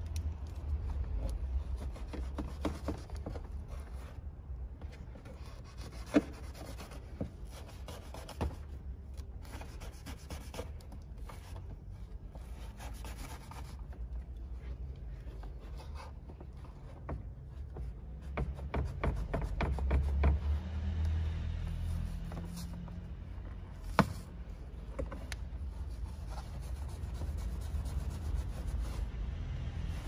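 Rubbing and rustling of hands pulling and tearing at felt insulation batting behind a plastic interior trim panel, with scattered small clicks and two sharp clicks, about 6 and 24 seconds in, over a steady low rumble.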